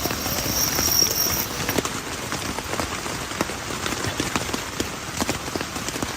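Rain falling steadily, with many separate drops striking a surface in sharp, irregular taps.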